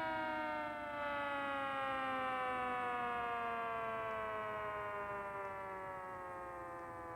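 Century electromechanical tornado siren winding down, its pitch falling steadily and its sound slowly fading.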